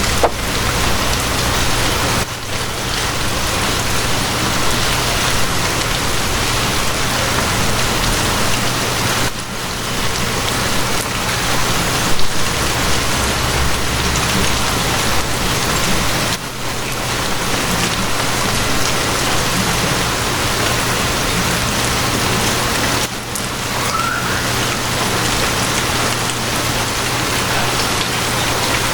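Steady rain falling on a surface, over a low, steady rumble. The sound dips briefly about every seven seconds.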